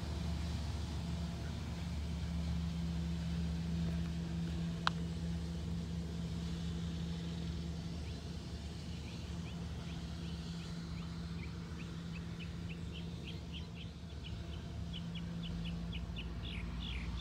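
Street sweeper truck's engine running with a steady low drone as it moves off along the street. There is one sharp click about five seconds in. From about halfway, a bird chirps in quick runs of short notes that grow busier near the end.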